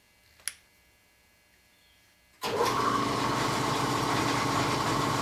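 A single sharp click, then an air compressor kicks on suddenly about halfway through and runs steadily with a loud motor hum.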